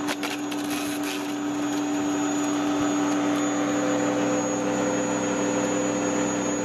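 Bosch AXT Rapid 2200 electric garden shredder running at a steady speed without cutting out, now that the loose magnet on its motor shaft has been put back and glued. A few sharp cracks in the first second or so as a branch is fed through, then an even motor hum.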